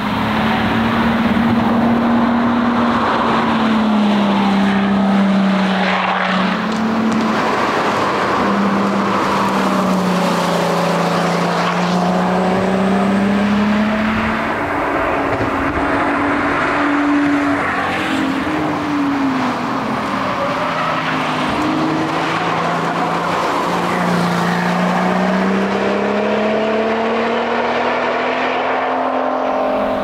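Lotus Exige S's supercharged engine driven hard through a series of bends: its note repeatedly climbs under acceleration and drops on lifting off, braking and gear changes.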